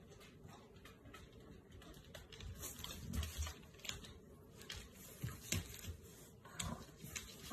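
Faint scattered clicking and tapping of dogs' claws on a tiled floor as two miniature bull terriers move about, with a few soft thumps about three seconds in.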